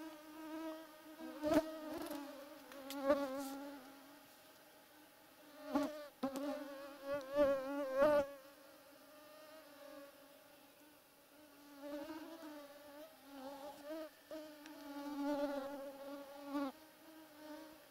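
Mosquitoes whining close to the microphone, the pitch wavering and the sound swelling and fading as they fly around. There are a few short clicks as well.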